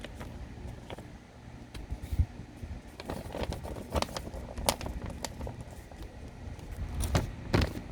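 Handling noise: scattered clicks, taps and knocks of objects being moved close to the microphone, with low thumps, busiest from about three to five seconds in and again near the end.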